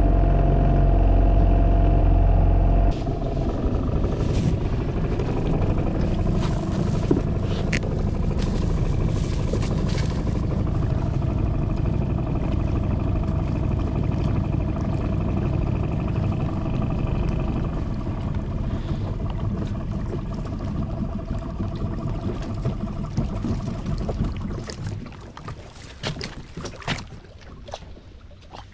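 A small boat's motor running steadily while under way, with rushing water and wind noise; it gets quieter over the last few seconds.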